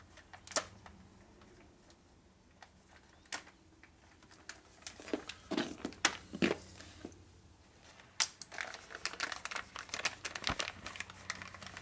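Crinkling of a small foil-and-plastic parts packet being handled, holding a new-old-stock transmission spring; a few scattered clicks and taps at first, then dense crinkling from about eight seconds in.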